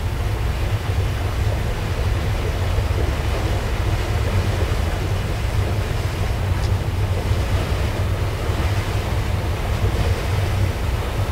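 Steady low rumble and hiss of a ship under way at slow speed: engine drone with water and wind noise, unchanging throughout.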